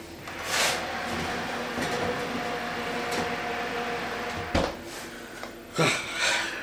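Fan oven with its door open: the fan runs with a steady whirring hum for a few seconds, then the oven door shuts with a knock about four and a half seconds in and the noise drops. Two short noisy bursts follow near the end.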